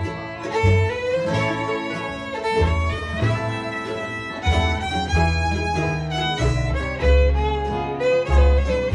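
Bluegrass jam music: a fiddle playing the tune with guitar and a bass line underneath.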